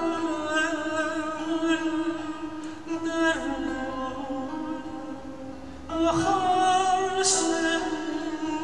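Male singer singing slow, long held notes that waver in pitch. The first phrase fades away about three seconds in, and a new, louder phrase begins about six seconds in.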